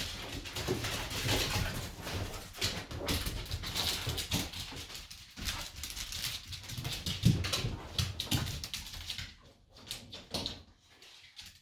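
Two corgis sniffing and snuffling as they hunt for a hidden toy. The sniffs come in a dense run of quick short bursts that thin out near the end.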